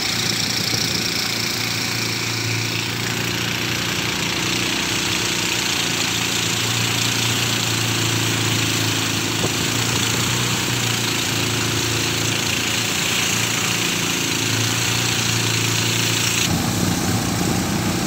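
Small motorboat engine running steadily, with a hiss of water and wind over it; the sound shifts abruptly about a second and a half before the end.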